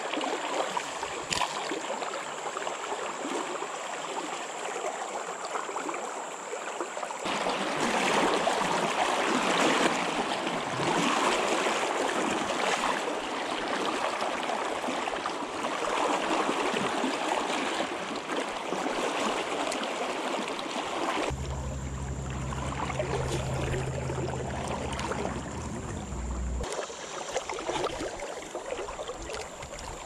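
River current rushing over a shallow riffle: a steady noise of moving water. A low rumble runs under it for several seconds about two-thirds of the way in.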